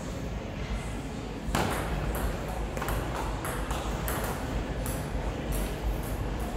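Table tennis ball being hit back and forth in a rally: a sharp hit about a second and a half in, then a run of quick clicks of ball on bats and table, about two or three a second.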